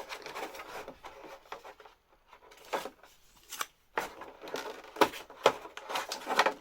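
Handling noise from a pair of plastic over-ear headphones and their packaging: scattered rubs, rustles and light taps.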